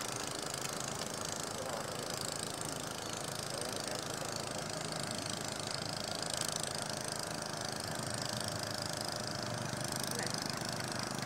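Steady rushing noise of wind, level and unbroken, with no distinct events.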